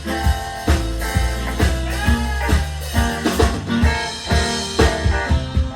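Live band playing an instrumental passage, with drums on a steady beat under bass and guitar.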